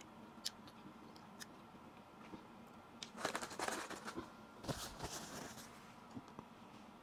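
Close-miked chewing of watermelon: faint, wet, crisp crunching in two short stretches, about three and about five seconds in, with a few small mouth clicks around them.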